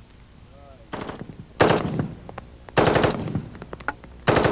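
Colt M16 in .223 fitted with a DTA Mil/Brake muzzle brake firing three short fully automatic bursts, a little over a second apart, after a fainter single report.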